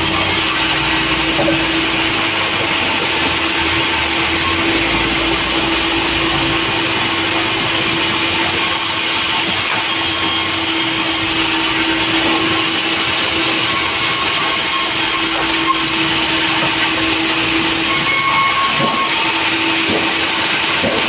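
Sawmill machinery running steadily: a loud, even machine noise with a constant tone under it, typical of a sawmill cutting timber.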